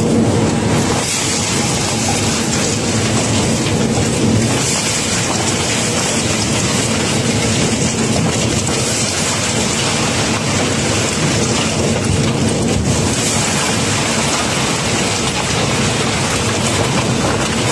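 Cobblestones pouring out of a barge's hold in a continuous, loud stream, over a steady machine hum.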